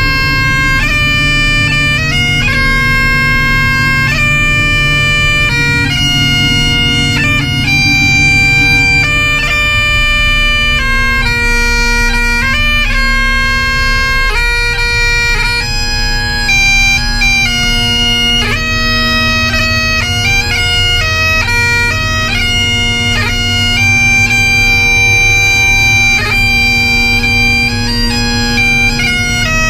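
Bagpipe music: a melody of quick changing notes played over a steady drone.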